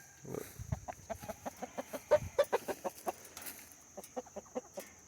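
Chickens clucking: a rapid run of short clucks, several a second, with a few low thumps near the start.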